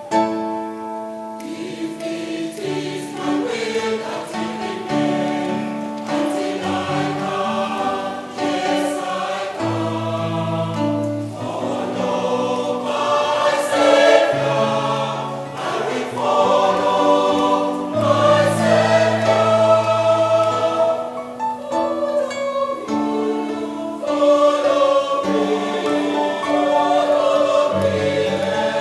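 Mixed choir of men's and women's voices singing a gospel hymn in harmony, with several parts held together and moving from note to note.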